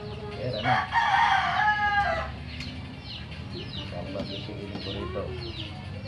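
A rooster crows once, about a second in, lasting about a second and a half; it is the loudest sound. Short high chirps from small birds repeat two or three times a second around it.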